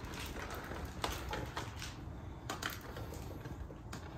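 A scattered series of light, sharp clicks and taps as a spoon and bowl are handled on a kitchen counter, over a low steady background hiss.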